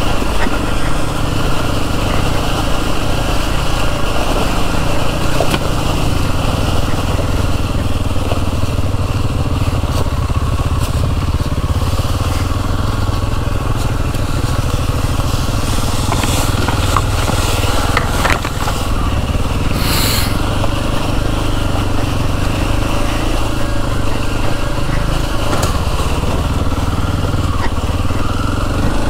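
Kawasaki KLX230's single-cylinder engine running steadily while riding a trail, with a brief burst of noise about twenty seconds in.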